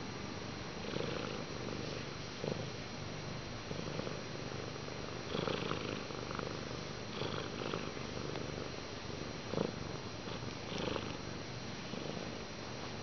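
Domestic cat purring steadily while being stroked, with soft rustles of a hand moving through its fur every second or two.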